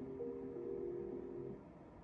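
Merkur Lucky Pharao slot machine playing its electronic spin tune, a few low notes held together like a chord, which stops about one and a half seconds in as the reels come to rest.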